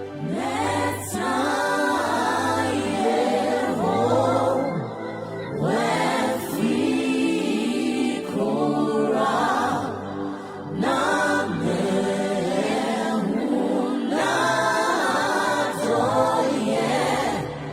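Choir singing a slow worship song in phrases of a few seconds, over steady low held notes.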